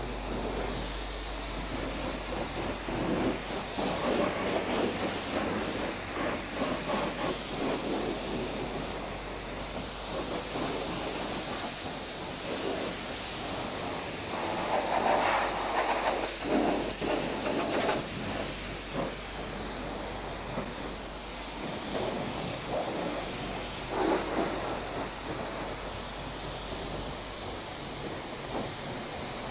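High-pressure car-wash lance spraying rinse water onto a scooter and the wet concrete floor: a steady hiss that swells and fades as the jet moves over different surfaces. A low steady hum underneath stops about two-thirds of the way through.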